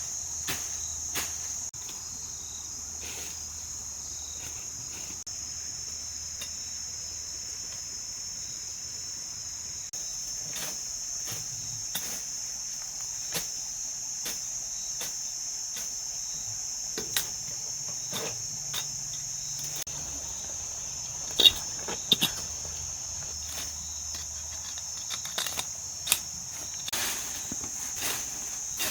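Insects giving a steady high-pitched chirr, with scattered short clicks and knocks, the loudest two close together about two thirds of the way through.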